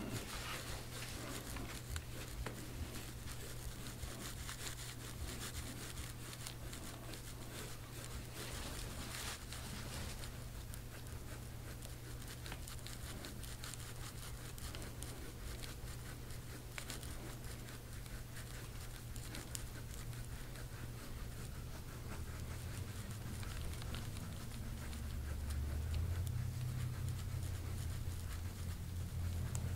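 A green handheld soft-tissue scraping tool rubbed repeatedly over oiled skin, a faint, scratchy rubbing over a steady low hum.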